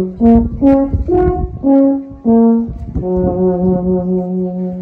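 A horn playing a slow tune: a run of short separate notes, then one long low note held from about three seconds in.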